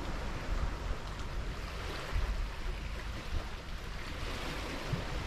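Steady outdoor noise of light wind buffeting the microphone over a soft wash of sea on the foreshore, with the low rumble swelling a little about two seconds in.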